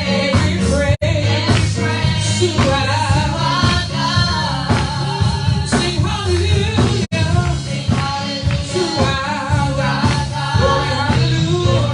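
Upbeat gospel praise song with singing over a steady bass beat; the sound cuts out for an instant twice.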